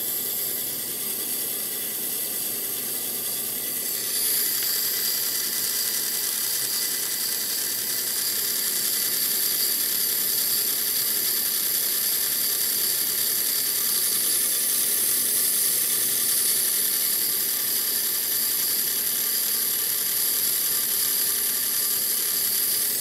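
Small DC motor and its plastic gearing whirring steadily as it drives the generator's cooling fan, running on about half a volt from the Peltier thermoelectric generator and slowly picking up speed. The whir gets louder about four seconds in.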